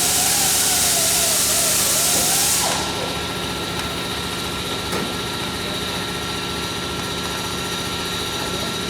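Workshop machinery noise: a loud hiss with a wavering motor tone that cuts off about two and a half seconds in. A steady mechanical hum with a constant high whine carries on after it.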